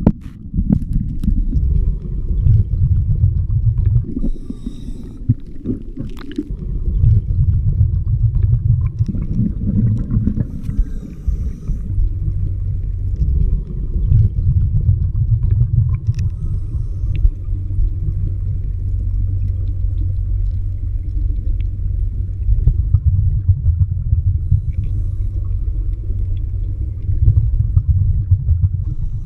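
Muffled underwater rumble heard through a waterproof camera housing submerged in a river dredge hole, with a steady low hum, typical of a running gold dredge motor carried through the water.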